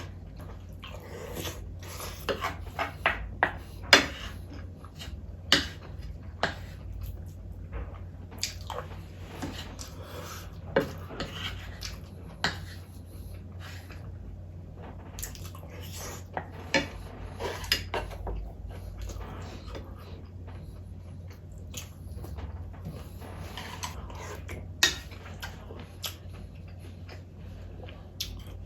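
Close-miked eating: chewing and mouth sounds, with utensils clicking sharply against dishes again and again, over a steady low hum.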